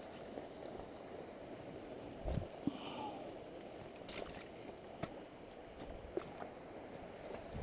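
Steady low rush of river water at the bank, with a few soft knocks and clicks from the inflatable pontoon boat's frame and gear as it is boarded.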